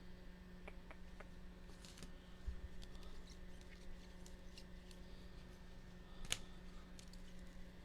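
Trading cards being handled and sorted on a table: scattered light clicks and taps, with one sharper tap a little past six seconds in, over a faint steady hum.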